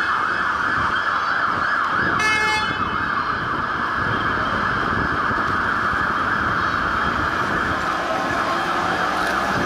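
UK fire engine siren sounding continuously with rapid warbling sweeps. A short horn blast cuts in about two seconds in.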